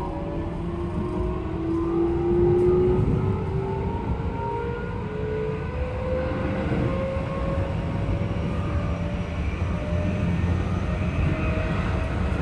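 Keikyu train formation 1625 accelerating, its car-5 traction inverter and motors giving a loud growl over a heavy low rumble, with several tones climbing slowly in pitch. The inverter is an unusually loud unit, which the uploader suspects was transplanted from formation 1479.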